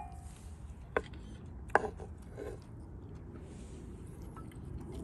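Metal tongs clicking against a cast-iron skillet as sliced steak is moved about. There are three sharp clicks in the first two seconds over a low steady background noise.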